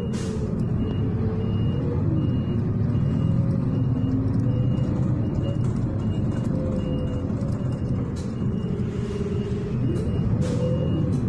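City bus engine running and rumbling from inside the cabin, its whine slowly rising and falling as the bus speeds up and slows. A short high electronic beep repeats about twice a second.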